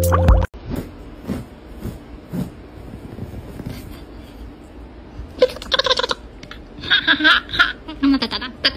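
Music cuts off about half a second in. Faint room noise with a few light taps follows, then about halfway through high-pitched laughter starts in short, rapid bursts, in several runs.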